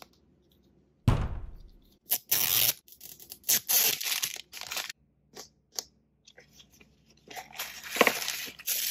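A thump about a second in, then the plastic wrap of an L.O.L. Surprise ball being peeled and torn off in short strokes. Near the end the plastic ball is pried open with a burst of crinkling and crackling.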